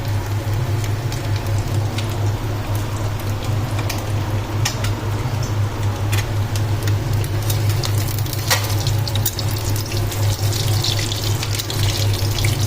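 Egg frying in oil in a pan: a steady sizzle with scattered sharp pops and crackles, over a low steady hum.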